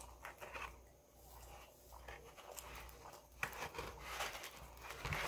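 Baked calzone crust of a Pizza Hut P'Zone crackling and tearing as it is pulled apart by hand, close to the microphone. The crackles come scattered at first and grow louder and denser in the last couple of seconds.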